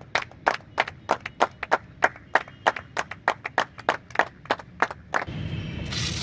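Hand clapping: sharp, distinct claps, about five a second, from a few spectators applauding a batsman. The clapping stops a little after five seconds in and a steady low rumble takes over.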